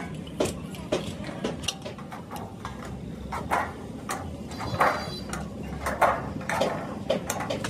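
Irregular knocks and clanks of hand work on metal, some strokes louder than others, over a steady low hum.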